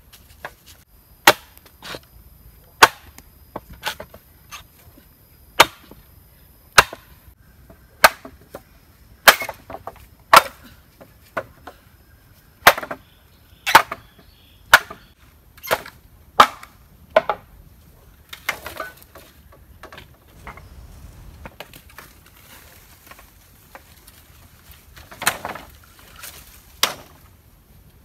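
Machete chopping into a green bamboo pole: a run of sharp, splitting strikes about one a second, then a short break with scuffling, and a couple more strikes near the end.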